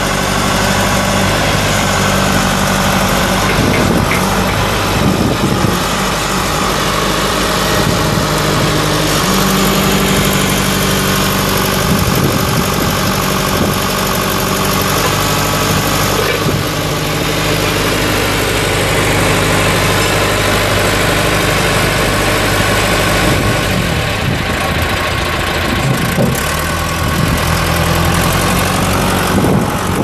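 Diesel engine of a 1989 John Deere 410C backhoe loader running steadily. Its pitch steps up and down several times as the backhoe boom and loader are worked.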